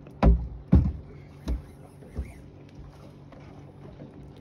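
Two loud, dull thumps about half a second apart, then two fainter ones, over the steady low hum of a small fishing boat on the water.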